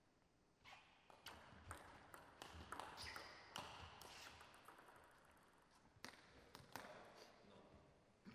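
Table tennis rally: the celluloid ball clicking off the bats and the table in a quick run of sharp hits, starting about half a second in and fading out after about seven seconds as the point ends.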